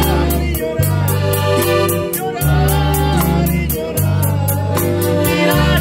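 Live band playing and singing: male voices over guitar, electric bass and a drum kit keeping a steady cymbal beat.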